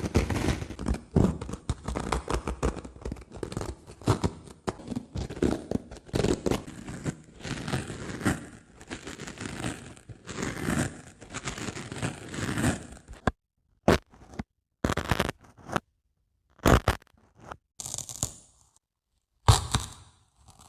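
Dry sponge worked close to a microphone: a dense run of crisp scratching, crunching and tearing-like noise, then, about two thirds of the way through, a few short separate strokes with dead silence between them.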